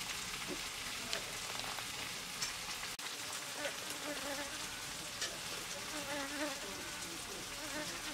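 Steady hiss with a few short, soft clicks as cherry tomatoes are sliced against a curved floor-held blade; from about halfway through, a fly buzzing close by, its pitch wavering.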